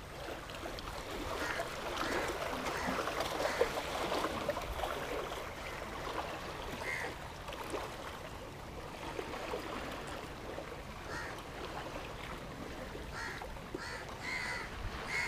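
Small waves washing against shoreline rocks, a steady moderate rush, with a few short faint bird calls.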